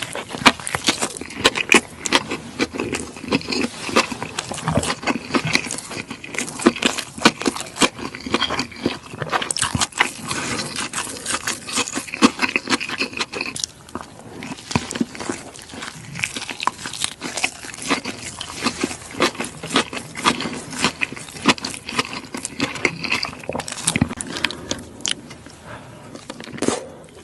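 Close-miked eating: a person biting and chewing fast food, a dense run of crunches and wet mouth clicks.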